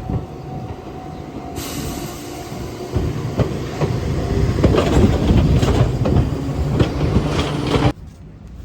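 Train running by, a loud rumble with rapid clatter from the wheels that builds over the first few seconds and cuts off suddenly near the end.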